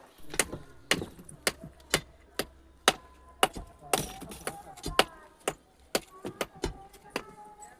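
Hand striking on a building site, like hammering: sharp blows about two a second, each with a brief metallic ring.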